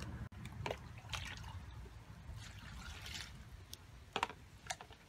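Water dripping and plinking in about eight separate drops and small splashes as a hand dips into a bucket of water, the loudest about four seconds in, over a low steady hum.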